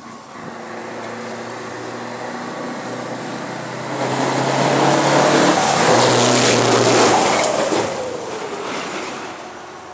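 Scania truck's turbocharged diesel engine growing louder as it approaches, with a turbo whistle over the engine note. It is loudest from about four to seven and a half seconds in, then drops in pitch and fades as it passes and drives away.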